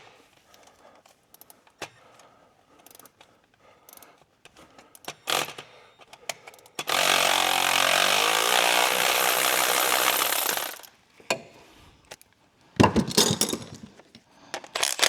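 A handheld power tool runs in one steady burst of about four seconds, backing out an exhaust manifold bolt. Sharp metallic clinks of tools and parts follow.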